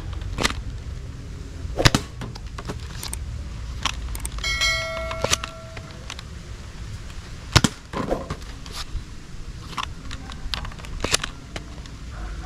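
Nerf Mega Talon foam-dart blaster being primed and fired: sharp snaps and clicks at irregular intervals, with a brief ringing tone about four and a half seconds in.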